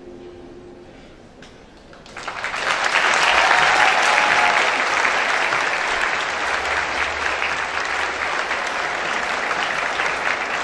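Large crowd applauding. The clapping starts suddenly about two seconds in, is loudest just after, then settles into steady applause.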